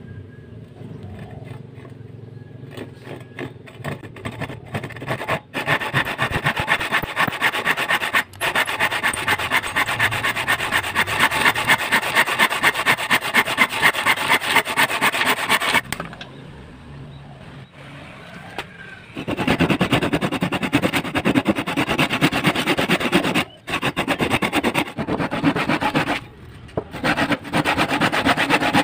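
Handsaw cutting across a wooden board: rhythmic rasping back-and-forth strokes of the teeth through the wood. The strokes are quieter for the first few seconds as the cut starts, then steady, with a short lull and a couple of brief breaks later on.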